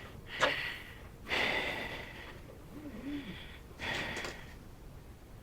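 A man breathing hard through the nose with effort: three loud, noisy exhales about a second long each, and a short low hum from the throat between the second and third.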